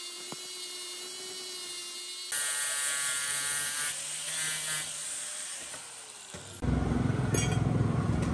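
Small electric power tools running in three spells: a steady motor whine, then a louder high-pitched tool from about two seconds in, then a louder rough, rumbling noise near the end.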